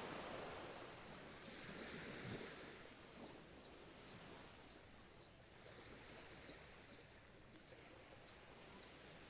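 Soft ocean waves washing ashore: one wave surges about two seconds in, then a quieter, steady wash follows.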